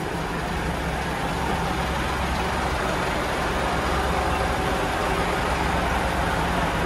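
Large diesel truck engine idling steadily, a low even hum.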